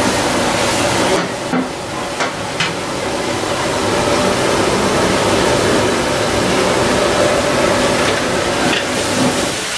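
Cauliflower pieces deep-frying in a kadai of hot oil: a loud, steady sizzle, with a few metal clinks from the long slotted skimmer against the pan and pot.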